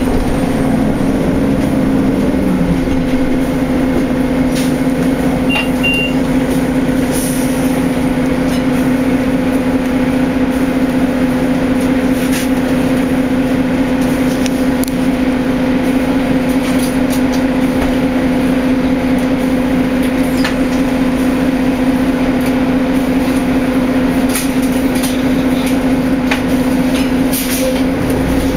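2003 Orion 07.501 VII bus's Detroit Diesel Series 50EGR inline-four diesel engine running with a steady drone, heard from inside the passenger cabin. A tone falls in pitch over the first couple of seconds, and scattered clicks and rattles come through.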